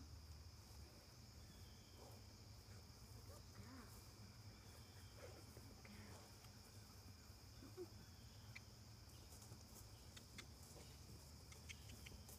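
Near silence: faint steady chirring of crickets in the grass over a low rumble, with a few faint ticks near the end.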